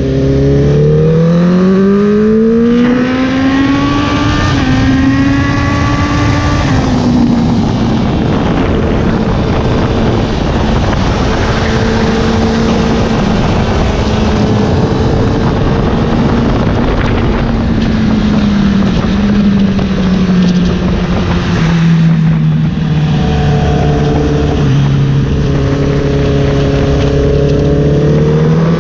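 Honda sportbike engine under way on a race track, heard from on board over heavy wind rush. The revs climb over the first six seconds, drop suddenly and hold, sink gradually through the middle, and climb again near the end.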